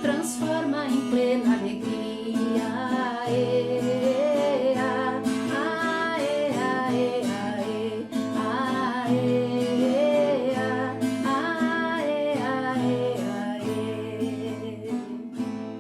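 Gospel hymn accompaniment: strummed acoustic guitar with a wavering melody line above it, playing on steadily and easing off near the end.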